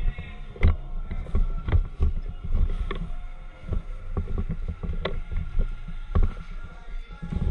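Irregular knocks and thumps, one or two a second, over a steady low rumble.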